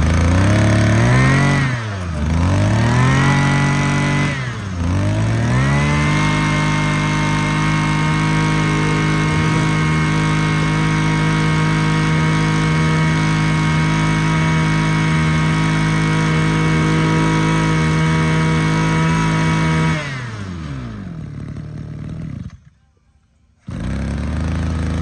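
Mitsubishi TU26 two-stroke brush cutter engine (26 cc) running: revved up and let back twice, then held at high throttle for about fourteen seconds at a steady pitch. It then throttles back and cuts off, and runs again for the last second or so.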